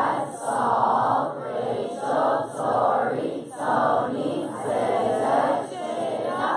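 A large crowd of campers singing or chanting together in unison, in loud rhythmic phrases that swell about once a second.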